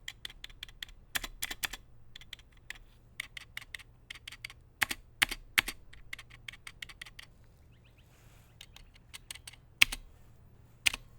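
Typing on a Kananic DKD L82 mechanical keyboard with clicky Cherry MX Blue–clone switches: irregular runs of sharp keystroke clicks, with a short lull about two thirds of the way through.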